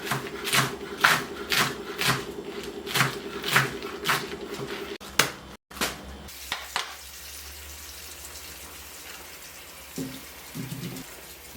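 Background music with a steady beat of about two hits a second over a held tone. It cuts off about five and a half seconds in, leaving a low steady hum with a few light clicks and knocks.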